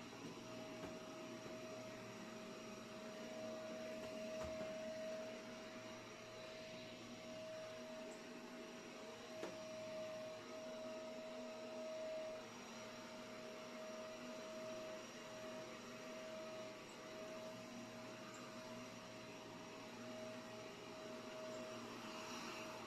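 Faint, steady machine hum with a constant tone and a hiss, like a running household appliance, with one brief click about nine and a half seconds in.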